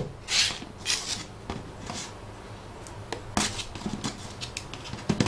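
Small cardboard phone box being handled and opened by hand: a string of short papery swishes, then light taps and clicks.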